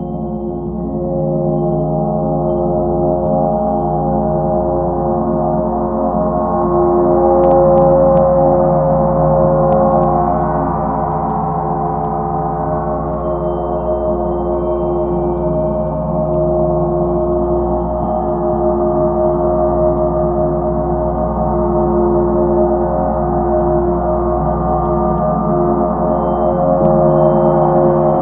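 Large gong played continuously with soft felt mallets, giving a sustained wash of many overlapping ringing tones. It builds over the first couple of seconds, swells loudest around eight seconds in, eases, and swells again near the end.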